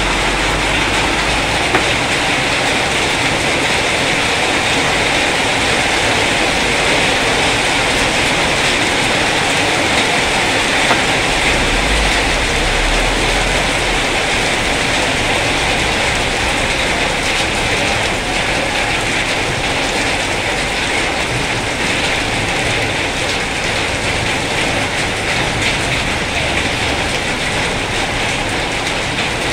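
Heavy rain pouring down steadily, a constant even hiss.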